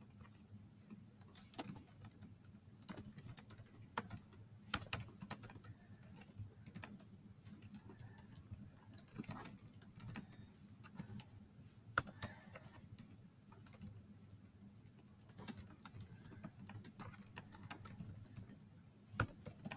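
Computer keyboard keys being typed in quick, irregular succession, faint, with a few louder key strikes.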